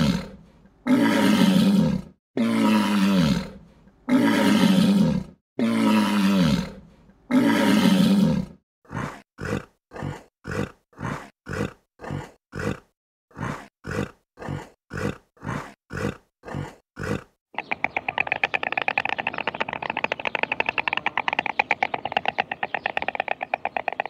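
Lion roaring bout: about six long, deep roars, each falling in pitch, followed by a run of some sixteen short grunts, about two a second, that close the bout. Then a fast, dry rattle of many clicks a second fills the last six seconds.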